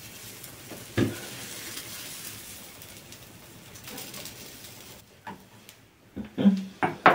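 Sizzling hiss of a hot metal dog-bone splint melting its way into a recycled plastic sleeper, with a sharp knock about a second in. The hiss fades about five seconds in, and a few short knocks follow near the end.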